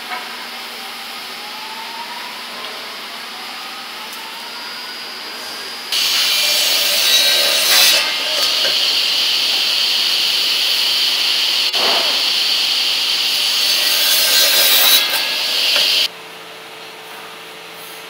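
Large circular crosscut saw cutting through a timber plank: a loud, steady high whine of the blade in the wood that starts abruptly about six seconds in and stops sharply about ten seconds later. Before it, quieter sawmill machinery noise with faint rising whines; after it, a low steady machine hum.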